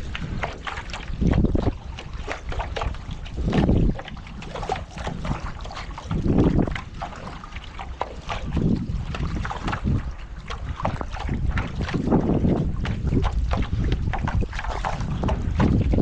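Strong wind buffeting the microphone, with water splashing and sloshing around a paddleboard being paddled into a headwind; the sound swells in loud surges every two to three seconds.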